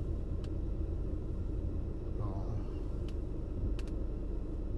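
Low, steady rumble inside a car's cabin while the car stands still, its engine idling, with a few faint clicks.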